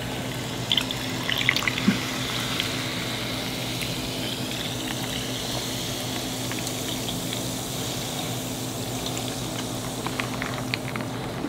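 Fresca soda poured from a can into a tall glass packed with ice: a steady pouring and fizzing hiss, with a few sharp clicks of ice shifting in the first two seconds.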